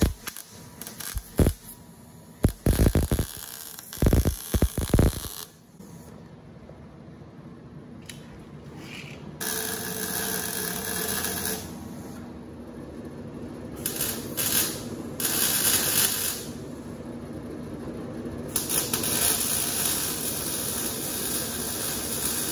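MIG welder welding steel roll-cage door bars: a string of short crackling bursts of tack welds in the first few seconds, then from about nine seconds in, several longer sizzling, hissing runs of a few seconds each as beads are laid.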